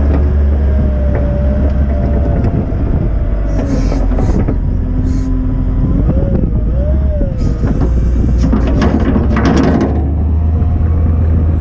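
Volvo L60E wheel loader's diesel engine running steadily with a wavering whine over it, and bursts of noise about four seconds in and again from about eight to ten seconds in as the bucket is raised.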